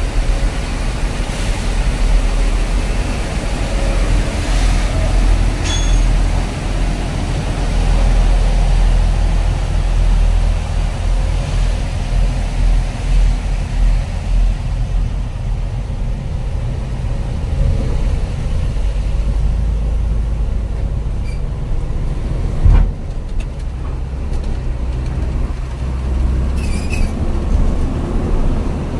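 Truck's diesel engine running as it drives slowly off a ferry ramp, heard from inside the cab as a steady low rumble. A single sharp knock about three-quarters of the way through.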